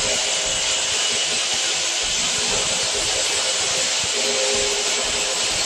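Electric hammer drill running steadily as it bores a hole into a tiled wall.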